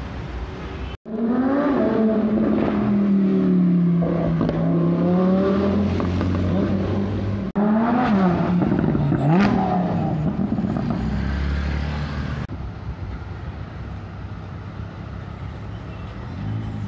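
Supercar engines running and revving in short edited clips: a loud, steady engine note with gliding pitch, cut off sharply, then a second engine giving two quick revs that rise and fall. This second engine is a Lamborghini Huracán V10. After that, quieter engine and traffic noise.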